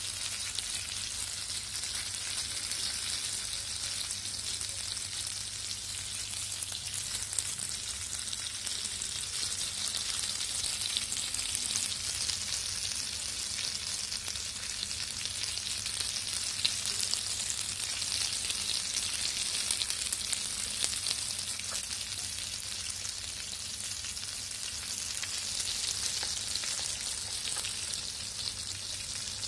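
Oil sizzling and crackling steadily around a whole masala-coated fish shallow-frying on a flat iron griddle, with a faint low hum underneath.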